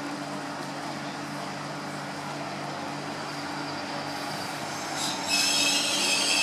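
Regional train running with a steady low hum. About five seconds in, a loud high-pitched metallic squeal from the wheels sets in, made of several shrill tones at once.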